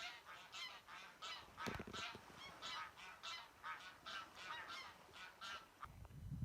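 A flock of geese honking in a rapid string of calls, about three a second. The calls stop near the end, where a low rumble comes in.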